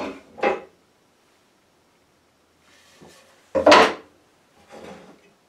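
A wooden board set down on a wooden workbench: one sudden knock with a short clatter about three and a half seconds in, after some quieter handling.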